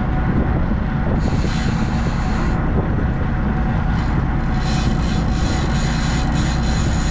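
Boat engine running steadily with a low drone, with stretches of high hiss over it.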